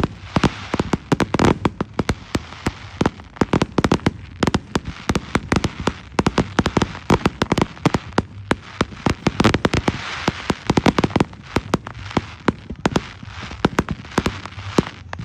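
A fireworks display: a rapid, unbroken string of shell bursts and bangs over a steady crackling hiss.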